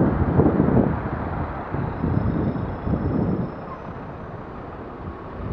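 Wind buffeting the camera's microphone over passing traffic noise while riding in traffic; the gusts ease after about three and a half seconds as the ride slows.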